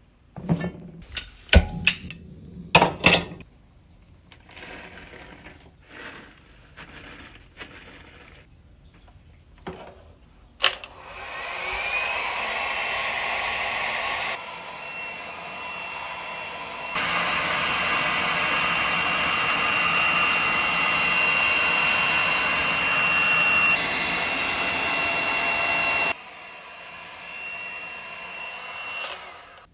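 A few knocks and clicks of handling. Then an industrial heat gun clicks on about a third of the way in, its fan spinning up with a rising whine into a steady blowing rush with a high whine over it. The rush drops to a lower level, comes back up, and cuts off sharply a few seconds before the end.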